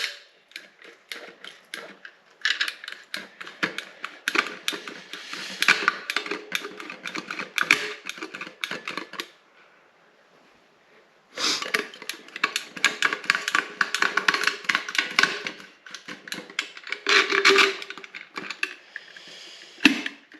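Rapid, irregular clicking and clattering of small hard objects being handled, in two long runs with a pause of about two seconds between them and a short burst near the end.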